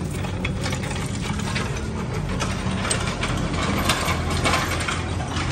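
A small steel dolly loaded with a heavy truck rear axle housing is pushed over rough dirt, its casters rattling and a loose chain clinking as it drags along. The clicks are dense and irregular, over a steady low mechanical hum.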